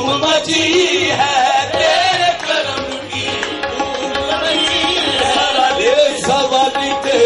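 Live qawwali music: a harmonium melody over a steady tabla beat.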